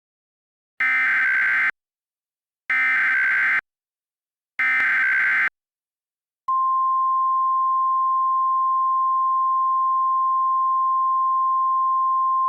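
Emergency Alert System SAME header: three short, even bursts of screechy digital data tones about a second apart, followed about halfway through by a single steady attention tone, the National Weather Service's 1050 Hz warning alarm, which carries on.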